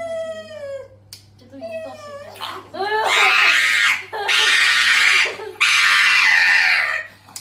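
A person's voice crying out: a few short wavering calls, then from about three seconds in three long, loud wailing cries.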